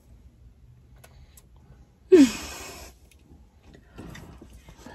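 A person's loud, breathy exhale with a falling voice, about two seconds in, much like a sigh. Fainter scattered voice sounds follow near the end.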